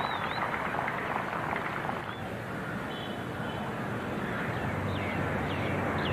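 Cricket ground crowd noise: a steady din of many voices. A few short high whistles come near the end.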